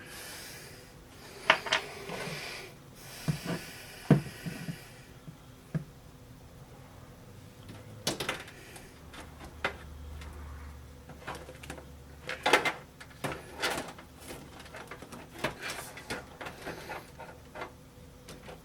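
Hands working inside a desktop computer case: scattered clicks and knocks of metal and plastic parts, with scraping during the first few seconds.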